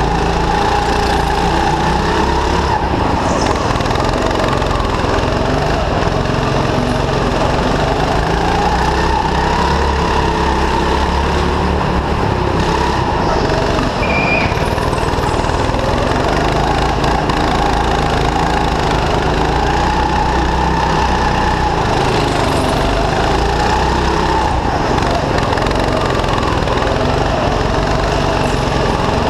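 Go-kart engine running close under the onboard camera, its pitch rising and falling as the throttle is worked through the corners. A brief high squeak comes about halfway through.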